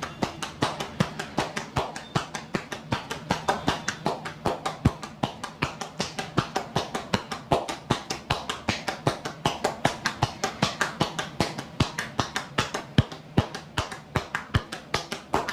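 Hands tapping and slapping rhythmically on a person's body in a percussive massage, about four or five quick strikes a second.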